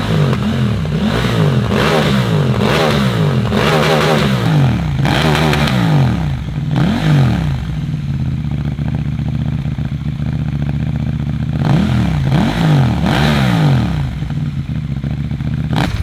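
KTM 890 Duke's parallel-twin engine revved at standstill through a titanium Austin Racing slip-on exhaust, with quick throttle blips rising and falling in pitch. It settles to idle about seven seconds in, then gets a few more blips a few seconds later before idling again.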